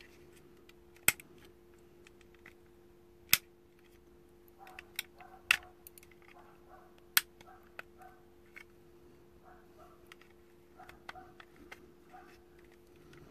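Sharp clicks of tweezers slipping and snapping against the plastic retaining tabs of a Volkswagen clock spring housing as it is pried apart: four loud snaps in the first seven seconds or so, with quieter ticks and scratching between them. A faint steady hum runs underneath.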